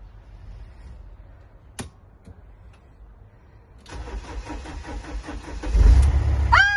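Mercedes-Benz Sprinter van's engine being started with a newly fitted battery: a click about two seconds in, then the starter cranks for about two seconds and the engine catches and runs loudly, starting on the first try.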